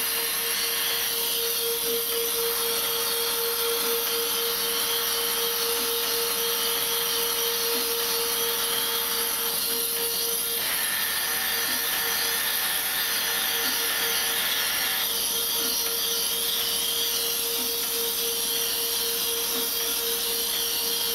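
Moore G-18 CNC jig grinder running under power: a steady hum with a high hiss over it. Fainter higher tones change every few seconds.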